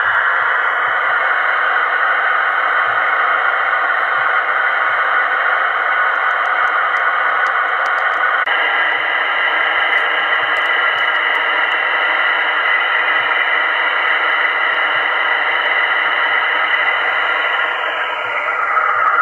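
Märklin H0 model diesel locomotive V 320 001 playing its digital diesel-engine running sound through its small onboard speaker: a steady, thin, hissy engine drone with no deep bass. The sound shifts about eight and a half seconds in and again near the end.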